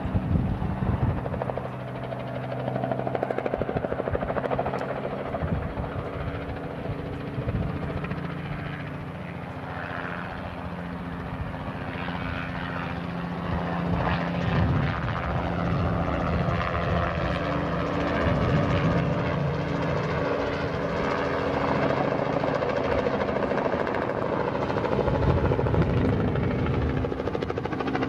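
Robinson R44 helicopter flying low on spraying passes: rotor and piston engine running steadily, the pitch shifting several times as it moves past, and growing somewhat louder in the second half.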